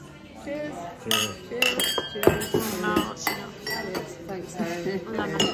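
Wine glasses and other drinking glasses clinking together in a toast: several quick clinks with a brief ringing tone, among voices.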